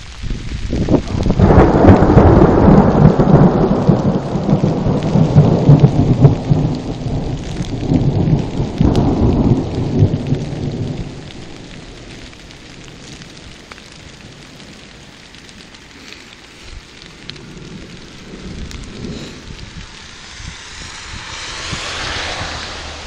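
Thunder: a long rolling rumble that starts about a second in, swells several times and dies away after about ten seconds, over the steady hiss of rain. A higher hiss rises near the end.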